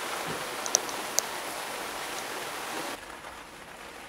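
Steady rushing outdoor noise, an even hiss with no pitch, with two sharp clicks about a second in. About three seconds in it drops suddenly to a quieter hiss.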